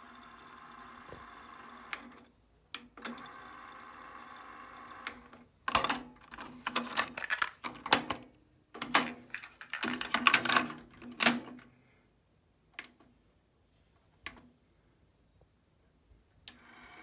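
JVC TD-W317 cassette deck's tape transport whirring steadily. It stops briefly with a click and then runs again. After that come a run of loud plastic clicks and rattles as the cassette door is worked and the tape handled, then a few single clicks.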